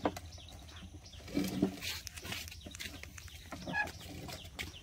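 A few short animal calls, one lower about a second and a half in and a higher squeak near the end, among scattered light clicks and knocks.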